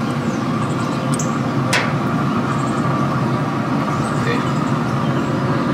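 Steady whir of a Pit Boss pellet smoker's fan running while it smokes, with a few faint clicks as the ribs are handled on the metal grate.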